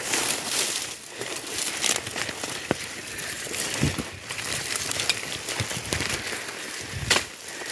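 Dry grass and stalks rustling and crackling as they scrape against the phone and the person pushing through dense brush, with a couple of low bumps from handling about four and seven seconds in.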